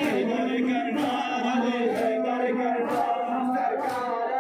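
A group of men chanting a Muharram nauha (lament) in long, sung lines. A sharp beat falls about once a second, in time with the chant: the mourners' chest-beating (matam).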